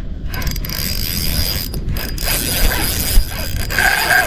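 Spinning fishing reel working under the pull of a hooked fish, its gears and ratchet clicking as line is taken and wound.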